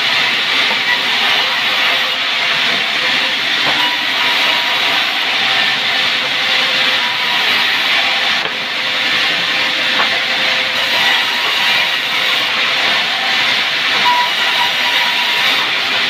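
Sawmill saw running steadily through sengon wood: a loud, even hiss with faint steady tones under it.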